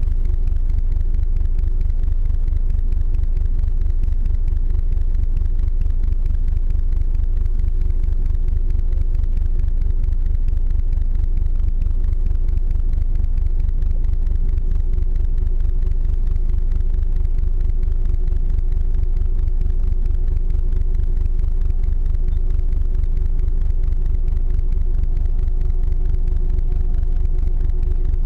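Icebreaker ship's engine running with a steady low rumble and a constant hum.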